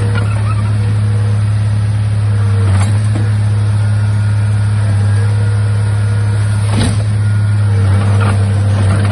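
Komatsu D31A bulldozer's diesel engine running steadily with a deep, even hum, with two sharp clanks about three and seven seconds in.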